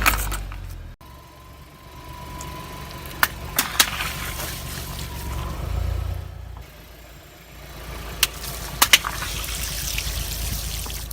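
A car's engine runs low while its tyres roll over and burst balloons. Sharp pops come in two clusters, about a third of the way in and again past two-thirds, with liquid splashing and trickling.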